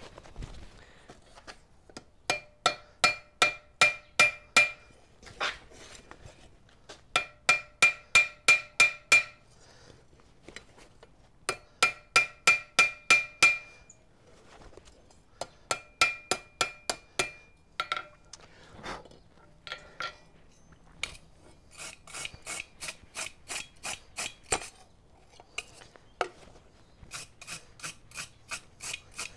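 Hand hammer striking a small piece of hot 6 mm steel round bar on an anvil, flattening it. There are four runs of quick blows, about four a second, each ringing off the anvil. In the last several seconds come rapid scratchy strokes of a wire brush scrubbing the forged piece.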